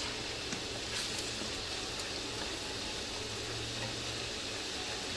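Food frying in hot oil in a cooking pot, a steady sizzle with a couple of faint clicks.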